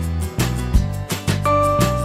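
Background music: an upbeat track with guitar and a steady beat.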